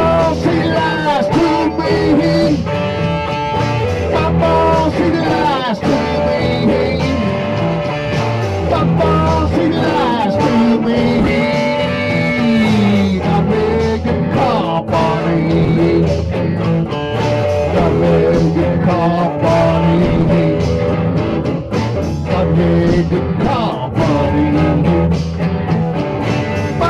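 Blues-rock band song led by guitar, with bending, sliding lead lines over a steady bass and drum beat.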